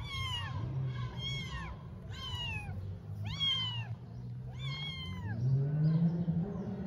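Newborn kittens mewing as their mother licks them: about six high-pitched cries, roughly one a second, each falling in pitch. Under them runs a low hum that rises in pitch near the end.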